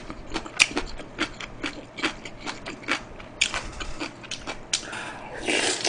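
Close-miked eating sounds: wet mouth clicks and smacks of chewing, then a longer noisy slurp of galbitang broth from a spoon near the end.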